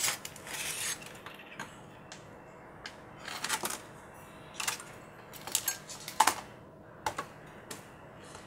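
Handling noise from a large multilayer motherboard and a soldering iron: a short scrape near the start, then irregular sharp clicks and taps as the board is moved on the mat and the iron tip works at a capacitor's pins.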